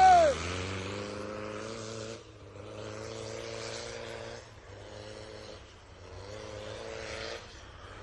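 Lifted 4x4 pickup truck's engine pulling away through snow: after a rev that falls away at the start, the engine note rises in pitch four times with short breaks between, like shifting up through the gears, and grows fainter as the truck moves off.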